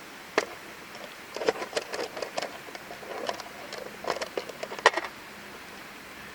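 Irregular clicks and light knocks of small hard objects being handled, about a dozen over four and a half seconds, the sharpest near the end.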